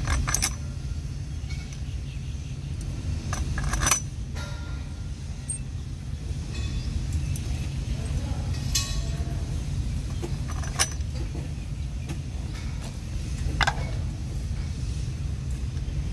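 A few sharp clinks and knocks as steel bolts, nuts and a PVC flange are handled and fitted onto a PVC ball valve, the loudest about four seconds in, over a steady low rumble.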